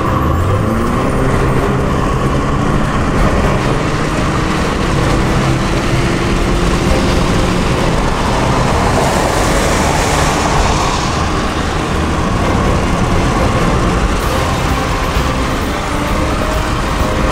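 Car driving at speed, heard from inside the cabin: steady engine and tyre noise on a wet road, with a swell of hiss about halfway through.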